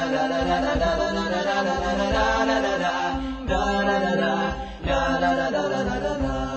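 An a cappella nasheed: several voices hold harmonized chords between sung lines over a low steady beat, with no instruments.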